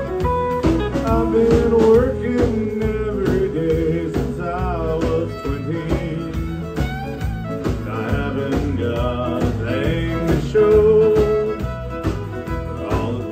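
Live country band playing an instrumental break: a fiddle carries the lead over acoustic and electric guitars and drums, with a steady beat.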